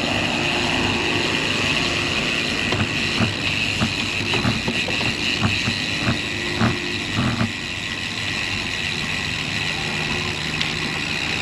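Steady wind and road noise from riding a road bicycle into a headwind, with a run of short knocks between about 3 and 7 seconds in.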